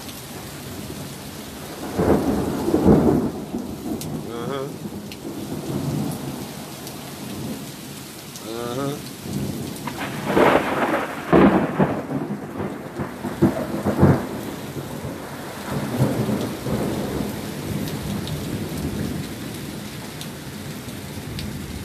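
Heavy rain pouring down steadily, with thunder rumbling through it in several louder surges, the strongest about two seconds in and again around ten to twelve seconds in.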